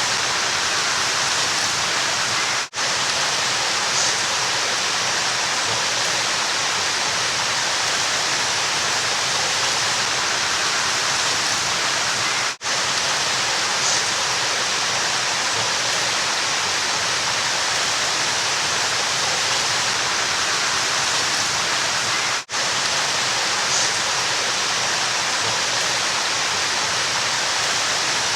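Flowing river water rushing steadily, an even, bright hiss. It cuts out for an instant three times, about ten seconds apart.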